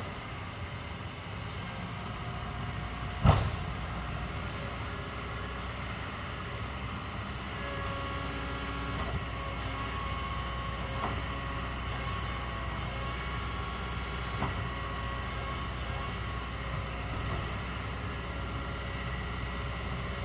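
Kobelco excavator's diesel engine running steadily, with one sharp loud knock about three seconds in and a few fainter knocks later on.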